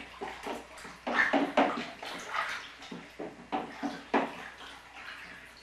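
Sour corn mash of cornmeal, sugar and hot water being stirred in a plastic cooler, sloshing in irregular strokes.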